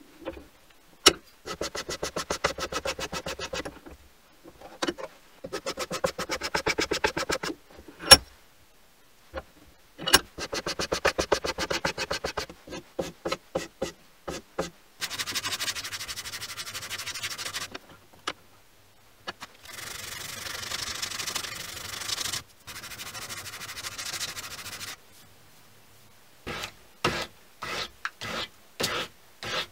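Walnut wood handle being filed and sanded by hand. Bursts of fast, even rasping strokes give way to longer, smoother stretches of sanding, then to separate short strokes near the end. A few sharp clicks fall in the first third.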